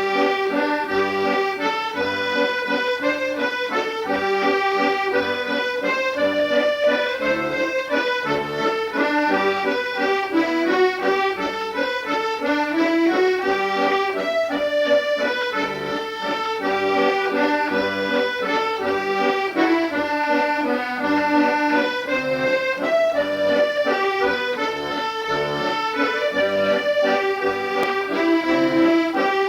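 Accordion music: a lively tune played in quick steady notes over sustained chords, one piece of a medley.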